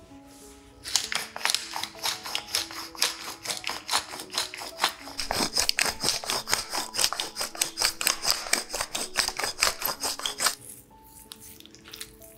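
Wooden pepper mill grinding peppercorns: a rapid crunchy clicking, several clicks a second, that starts about a second in and stops near the end. Soft background music plays underneath.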